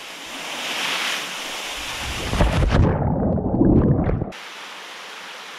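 Rushing canyon water building, then a heavy rumbling splash into a pool about two and a half seconds in. It turns muffled, its high end gone, and cuts off abruptly about four seconds in, leaving the steady sound of falling water.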